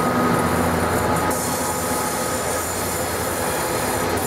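Class 66 diesel locomotive with an EMD two-stroke V12 working hard as the rear banker of a heavy loaded ballast train. It passes close by and pulls away up the grade, with the wagons' wheels running and squealing on the curved track.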